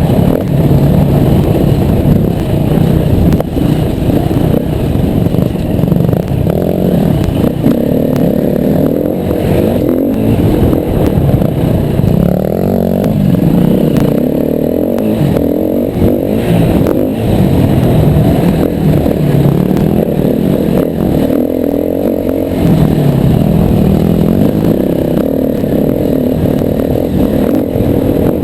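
Yamaha WR250R's single-cylinder four-stroke engine ridden hard off-road, revs rising and falling every few seconds as the throttle is opened and closed.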